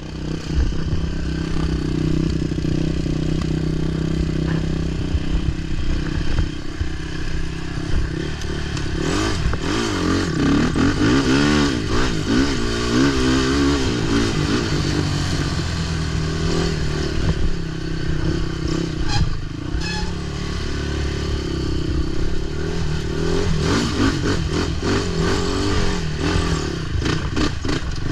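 Racing ATV engine running, holding a steady pitch for the first several seconds, then revving up and down repeatedly, with clattering and scraping.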